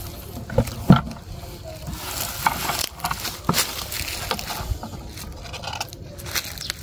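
A couple of dull knocks about a second in as a papaya is set down among others in a plastic bucket, then irregular rustling and crackling of footsteps through weeds and dry stems.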